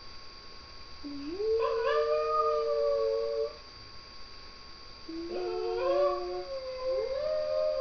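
Shih Tzu howling in long, drawn-out notes: one howl scoops up in pitch about a second in and holds for a couple of seconds, and a second one starts about five seconds in and carries on to the end.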